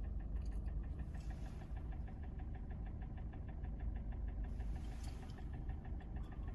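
Kia Sportage's G4NA 2.0-litre four-cylinder petrol engine idling before reaching operating temperature, with a fast, even, ringing tick-knock over the idle hum. The owner takes the knock for the cam phasers or valves rather than the pistons, on an engine with 265,500 km.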